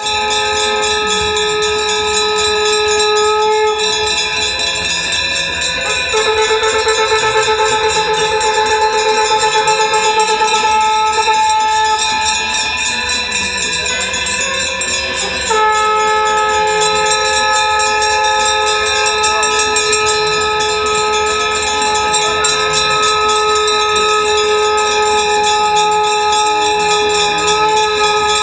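Conch shells (shankh) blown in long, steady held notes, several overlapping. One note wavers for a few seconds, and a new note takes over sharply about halfway through.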